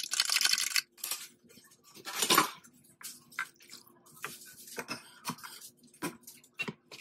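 Eggs being beaten fast in a plastic measuring cup with a fork, a dense rattle that stops about a second in. Then a louder clatter a little over two seconds in, and scattered clinks and scrapes as the egg is poured into a stainless-steel mixing bowl of shredded enoki mushrooms and vegetables.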